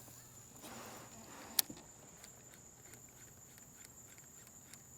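Insects buzzing steadily in one high, even tone. A sharp click comes about a second and a half in, and faint regular ticks follow through the rest.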